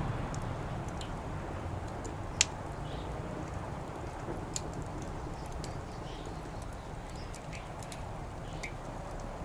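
Wood fire crackling: irregular sharp pops and snaps, one louder pop about two and a half seconds in, over a steady low background rumble.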